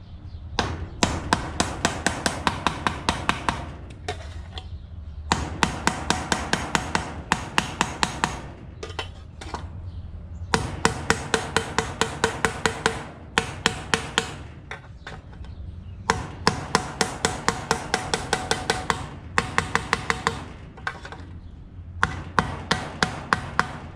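Hammer rapping a stamped sheet-metal engine cover flange laid on a steel carport post, in quick runs of about five ringing metallic strikes a second with short pauses between. The blows are flattening bolt holes that were pulled out of shape by over-torquing.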